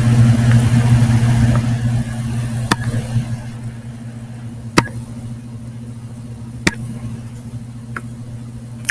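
A steady low hum that fades over the first few seconds, with four sharp clicks about two seconds apart.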